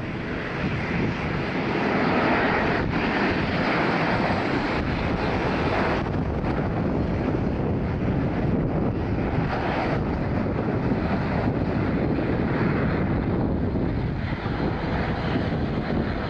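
Embraer 190 airliner's twin jet engines on final approach and landing, a steady jet engine noise that continues through touchdown and the rollout on the runway.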